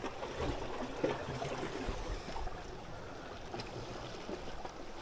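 Sea water lapping and sloshing as a steady noise, with a few low thumps about two seconds in.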